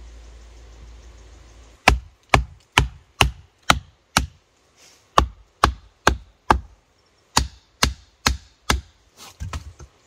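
Heavy blows of a tool on wood, about two a second, in three runs with short pauses between; each blow is a sharp crack with a dull thud under it. A few lighter blows come near the end.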